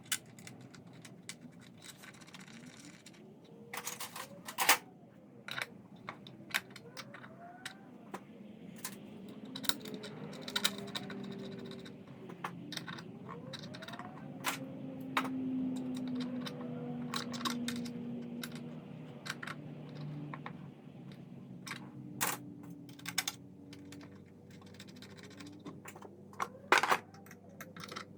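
Scattered sharp clicks, taps and light scrapes of hand tools and metal motorcycle parts being handled and fitted, with a few short rising squeaks.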